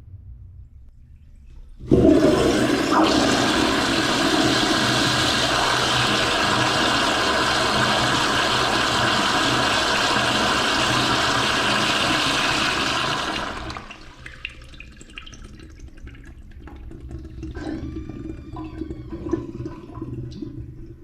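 Toilet flushing: a sudden loud rush of water starts about two seconds in and runs steadily for about eleven seconds. It then drops away to quieter trickling and gurgling.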